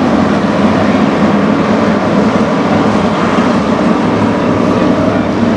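Street stock race car engines running together in a loud, steady drone, with a low engine tone under a wash of noise.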